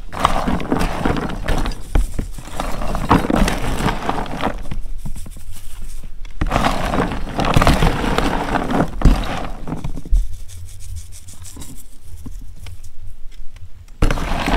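Sugar-coated popcorn being stirred and scooped with a metal scoop in a cooling tray: crunchy rustling and scraping in bursts, with a short pause about six seconds in and a softer stretch near the end.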